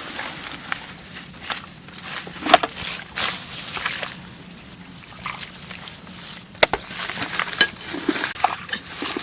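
Scattered wet squelches and sharp clicks, irregularly spaced, of hands digging in rice-field mud.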